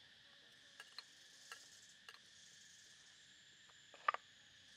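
A few short clicks and taps of a cleaver blade against a small clay cup as chili flakes are scraped out, the loudest double tap about four seconds in, over a steady high chorus of crickets.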